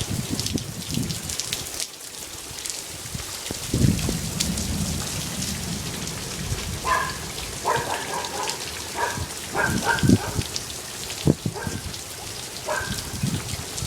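Nickel- to quarter-sized hail and heavy rain pelting down, a dense patter of sharp ticks as hailstones strike, with uneven low rumbles underneath.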